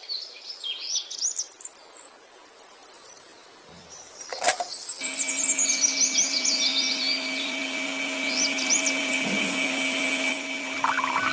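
Birds chirping in quick high sweeps, then a lull broken by one sharp click. After that a steady hum with several held tones sets in, with more chirps over it.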